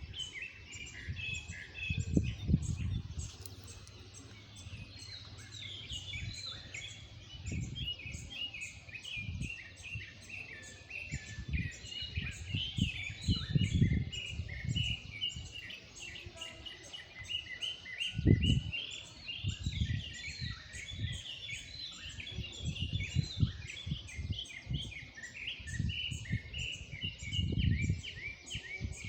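Morning chorus of several songbirds: many quick overlapping chirps and trills. Low rumbles on the microphone come and go, the loudest about two and a half seconds in and near eighteen seconds.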